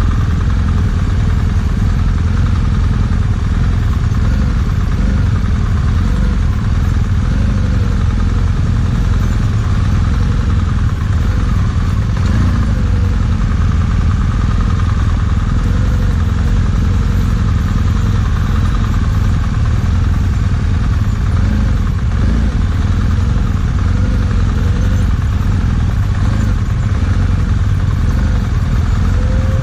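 BMW GS motorcycle engine running steadily at low revs, its pitch drifting gently up and down with a low rumble throughout.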